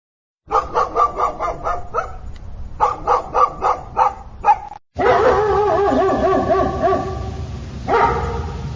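A dog barking in a quick string of short barks, several a second, that stops abruptly. Then a dog's drawn-out, wavering cries.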